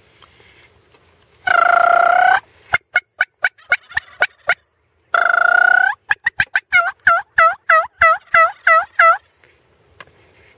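Turkey calling, loud and close: a long held note followed by a quick run of short clucks, then a second held note and a long, even series of yelps. It is a hunter's call imitating a hen turkey to draw in gobblers.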